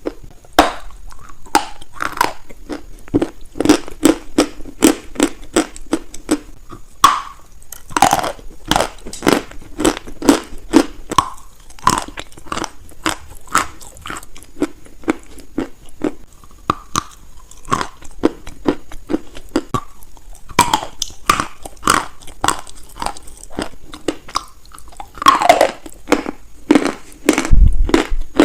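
Close-miked biting and chewing of crunchy baked clay, a dense run of sharp, irregular crunches and crackles with a louder cluster of bites near the end.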